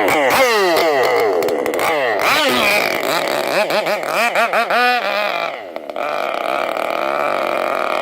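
Modified Zenoah G320PUM small two-stroke gasoline engine of an RC racing boat, revved in quick repeated blips with its pitch rising and falling. About halfway through it dips briefly, then runs at a steady speed.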